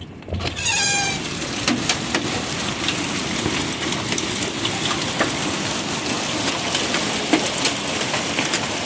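Hail pelting a car, a dense, loud clatter of many sharp ice impacts over a steady rushing noise. It starts suddenly about a third of a second in, with a brief falling squeal near the start.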